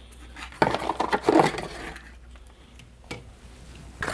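Handling noise from unpacking a mini quadcopter's box: rustling for about a second, then a few light clicks and knocks.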